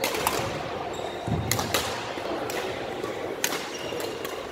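Badminton rackets striking a shuttlecock in a doubles rally: several sharp pops spread across a few seconds, with short squeaks of court shoes on the wooden floor in between.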